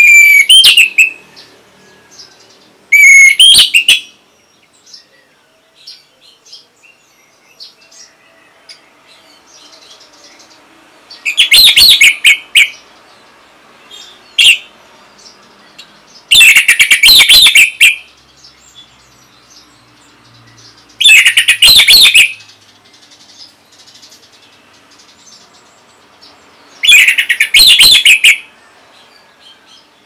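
Orange-headed thrush singing: six loud, high, rapid song phrases about a second each, spaced several seconds apart, with soft short chirps in between.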